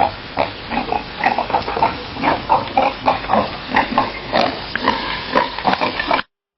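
Pig grunting: a quick run of short oinks, several a second, that cuts off abruptly near the end.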